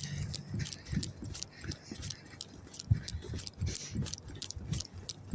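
Brisk walking footsteps, about two to three steps a second, with light clinking and rattling from things carried by the walker.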